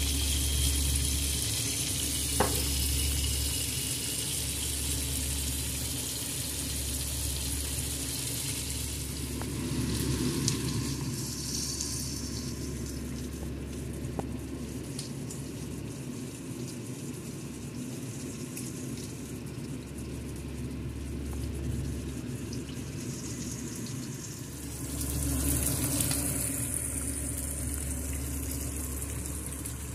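Wagyu New York strip steak sizzling as it fries in a pan with garlic, a steady hiss that swells louder a couple of times, with a couple of sharp clicks.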